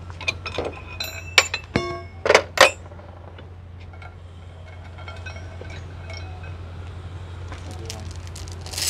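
Steel parts and hand tools clinking against each other, each strike leaving a short metallic ring, with a cluster of sharp clinks between about one and three seconds in and another near the end, over a steady low hum.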